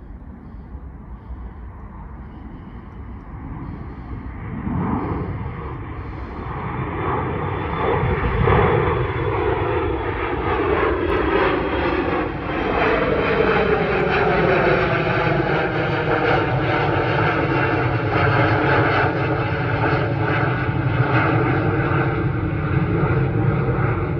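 Twin-engine regional jet's turbofan engines on takeoff climb-out. The engine noise swells over the first several seconds as the jet climbs toward the listener, its whine slides down in pitch as it passes overhead about halfway through, and it stays loud as the jet climbs away.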